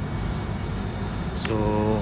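Steady low rumble of background noise, with a short sound from a man's voice about one and a half seconds in.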